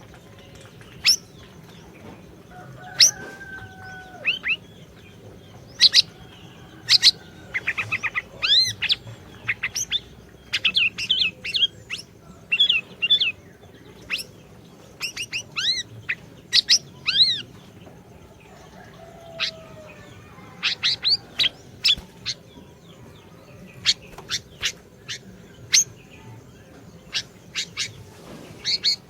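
Siri-siri songbird singing in short, sharp high chirps and quick runs of repeated arched notes, with pauses between phrases.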